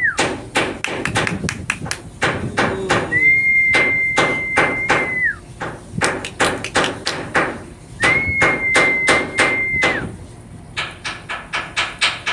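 A high steady whistle, held for about two seconds with a short rise at the start and a drop at the end, sounds three times over a run of sharp, irregular taps or clicks.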